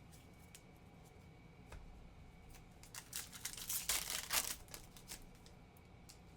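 A foil trading-card pack wrapper being torn open and crinkled, a short rustling burst about three seconds in. Light clicks of card handling come before and after it.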